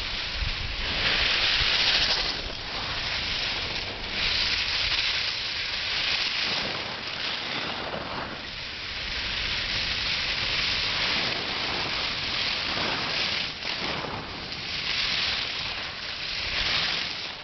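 Skis scraping and hissing over packed snow as skiers sweep past close by, coming in several swelling hisses a few seconds apart, with some wind rumble on the microphone early on.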